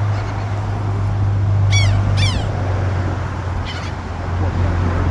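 Seagulls calling: two sharp, falling mewing calls about two seconds in and a fainter one near four seconds, over a steady low rumble.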